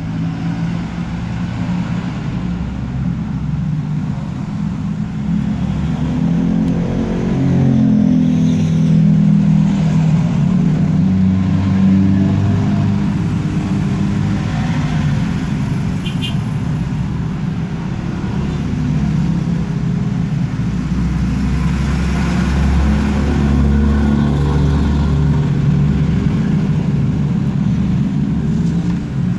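An engine running continuously with a low rumble, its pitch shifting up and down at times, like a motor vehicle idling and revving.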